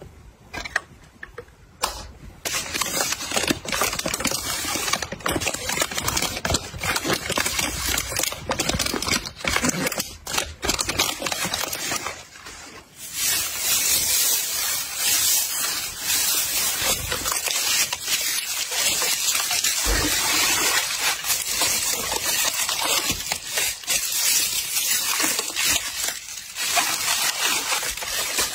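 Hands rustling and crinkling packing material, shredded paper filler and plastic bubble wrap: a dense crackle full of small clicks that starts about two seconds in and eases off briefly near the middle.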